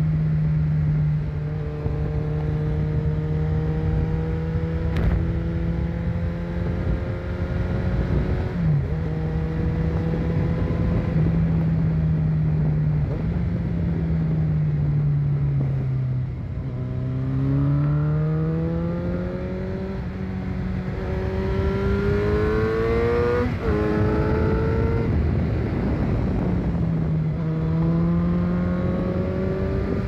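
Motorcycle engine running under way on a ride. The pitch holds steady, drops as the throttle eases about halfway through, then climbs again as it accelerates, with a gear change near the end, over steady wind noise.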